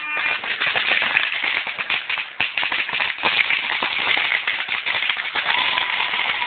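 Firecrackers set off by football supporters popping and crackling in a dense, fast run of sharp cracks, over crowd noise.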